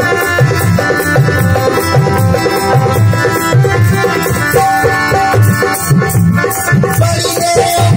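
Live devotional folk music played through a PA: a dholak hand drum beats a steady rhythm of deep strokes about twice a second under a held, sustained instrumental drone, with quick ticking percussion on top.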